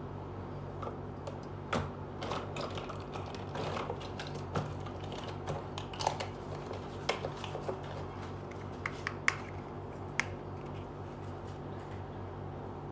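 Small plastic miniature kitchen toys being handled: irregular light clicks and taps that stop about ten seconds in, over a steady low hum.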